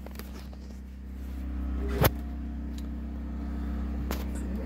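A steady low hum, with two sharp clicks from handling shotgun shells at the reloading bench: one about two seconds in and one near the end.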